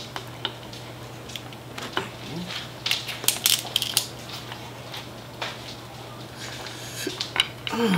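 Seafood shells being cracked and broken apart by hand while eating. There is a cluster of sharp cracks about three seconds in and a few more near the end.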